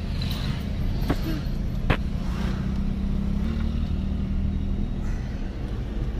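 Steady engine and road noise of a moving car, heard from inside the cabin, with a low hum throughout. Two sharp clicks or knocks come about one and two seconds in.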